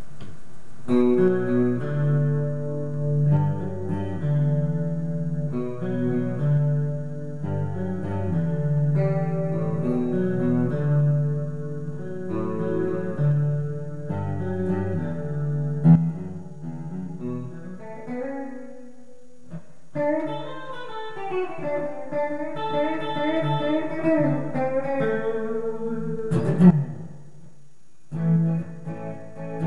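Fender Player Telecaster electric guitar on the middle pickup position, bridge and neck pickups together, tuned down to drop D. It plays low, heavy chord riffs, then a stretch of single-note lead lines with string bends, with a sharp click about two-thirds through, and the chord riff comes back near the end.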